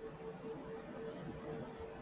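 Faint small clicks of hard plastic as a toy rifle is pushed into an action figure's hand, over a faint steady hum.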